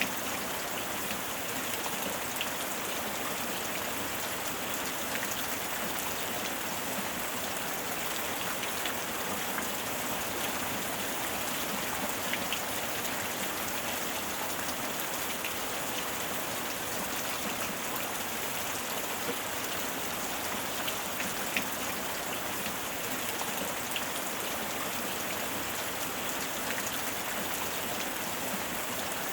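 Steady rainstorm: rain falling in an even hiss, with scattered sharp taps of individual drops hitting a surface.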